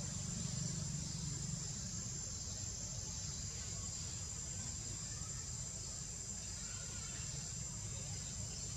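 Steady high-pitched insect drone over a low steady rumble.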